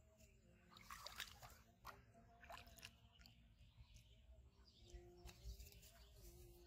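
Near silence outdoors, with faint scattered crackles and ticks.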